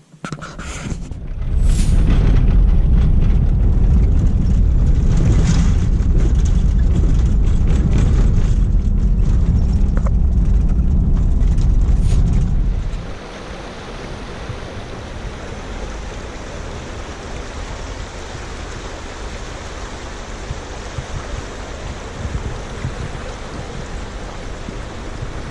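A loud low rumble for about thirteen seconds, then a steady rushing of flowing river water.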